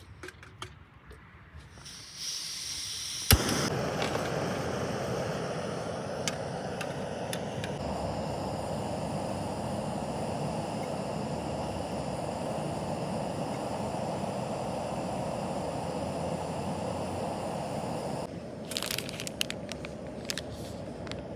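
Portable gas camping stove being lit: gas hisses on about two seconds in, a sharp igniter click catches it, and the burner then runs with a steady rushing flame noise. Near the end the flame noise drops lower, with a few light clicks and knocks.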